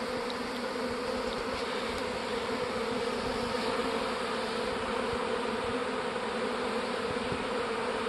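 A dense mass of honeybees buzzing steadily at a hive entrance, a low even hum that does not change. The swarm is moving into the hive with bees fanning at the entrance, which the beekeeper takes as a sign the queen is inside.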